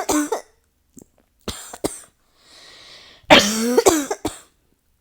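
A person in a coughing fit: the tail of one cough, a few short coughs about a second and a half in, an audible breath in, then a loud burst of about four coughs in quick succession just past three seconds in.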